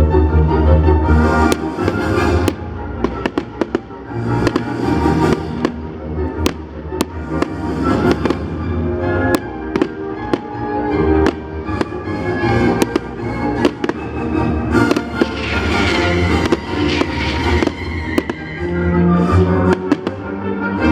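Firework show: sharp firework bangs and pops go off again and again over loud music played for the show.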